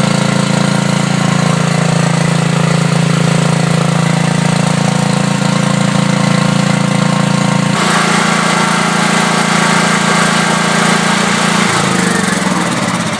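RIDGID 8000 portable generator running steadily on propane. Its tone changes abruptly about eight seconds in, and near the end its pitch falls as it starts to wind down.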